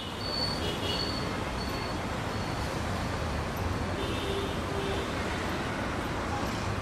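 Steady outdoor street background of road traffic, a constant low hum with a few faint short high tones in the first couple of seconds.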